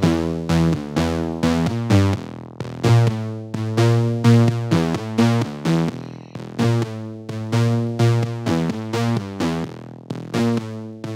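Low, distorted synthesizer lead layer playing a repeating melodic phrase on its own, each note starting sharply and fading, while an EQ trims its low end so it sits as a lead rather than a bass.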